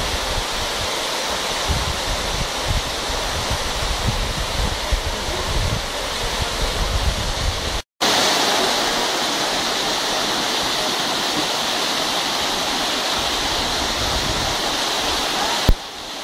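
Mountain waterfall cascading over boulders: a steady rush of falling water, with low buffeting in the first half. The sound cuts out for a moment about eight seconds in, then carries on steady.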